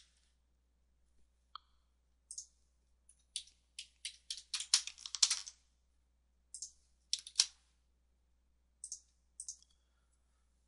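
Computer keyboard typing: short runs of quick, sharp key clicks with gaps between them, as a login password is typed in.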